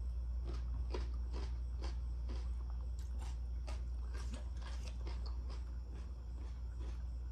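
A person chewing soft food close to the microphone: irregular mouth clicks a few times a second, over a steady low hum.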